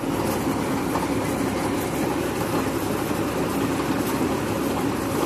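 Truck-mounted borewell drilling rig running, a steady mechanical noise with a faint steady hum in it.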